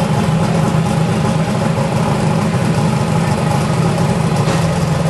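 Pickup truck engines idling steadily at the drag-strip start line, a constant loud low drone with no revving.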